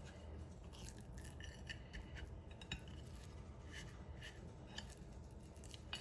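Faint, scattered light clicks and rubbing from handling raw pork chops and the seasoning container on a plate, over a low steady room hum.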